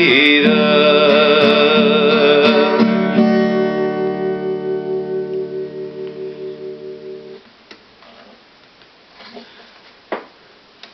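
Final chord on a guitar ringing out and slowly dying away, then stopped about seven seconds in. A few faint knocks follow in a quiet room.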